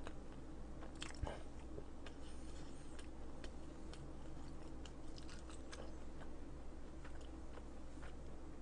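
A person chewing chewy raw octopus close to the microphone, with faint wet mouth clicks and smacks; the most distinct click comes about a second in.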